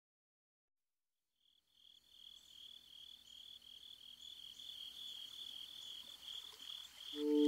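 After a second and a half of silence, a high insect-like chirping fades in, pulsing about three times a second and growing louder. Near the end, held musical tones enter.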